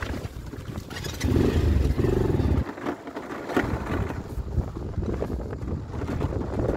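Motorcycle riding on a rough gravel road: engine running with rumble and wind on the microphone. A louder stretch of engine sound runs from about one to two and a half seconds in and ends abruptly.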